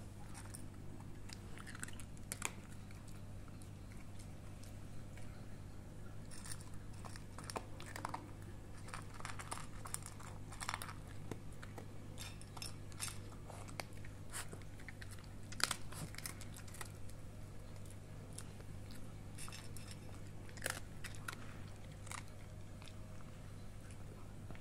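A dog crunching and chewing dry kibble, a long run of sharp, irregular crunches, over a steady low hum.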